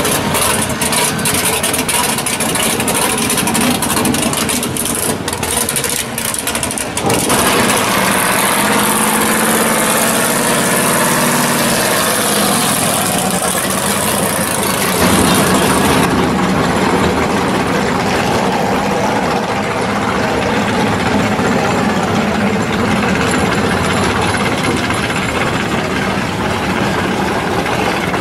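Loud V8 engines of drag and muscle cars running in the pits, idling and blipping, one car after another; the sound changes abruptly about seven and fifteen seconds in as the clips cut.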